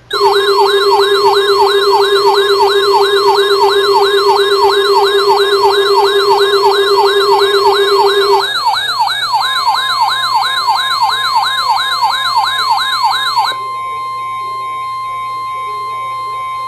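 Electronic emergency-alert siren warbling fast, about three up-and-down sweeps a second, over a steady lower tone that stops about eight seconds in. About thirteen seconds in the siren cuts off into a single steady high tone.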